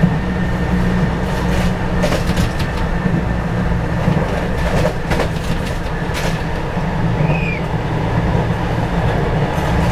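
Electric commuter train (KRL electric multiple unit) running along the track, heard from the front cab: a steady low rumble with scattered sharp clicks of the wheels over the rails.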